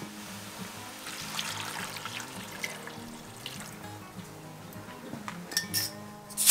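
Beef stock poured into a cast-iron pot of sliced onions, a splashing trickle from about a second in that fades after a couple of seconds, over background music. A few sharp clicks near the end.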